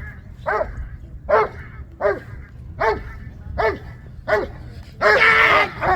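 A dog barking in a steady rhythm, about one sharp bark every three-quarters of a second, six times, then a longer drawn-out bark near the end.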